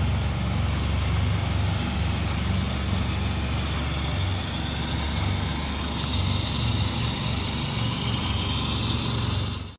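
Ferrari 612 Scaglietti's V12 engine idling steadily, a low, even running sound.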